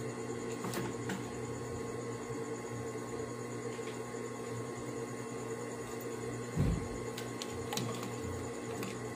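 Steady electric motor hum with a faint high whine, and one short thump about two thirds of the way through.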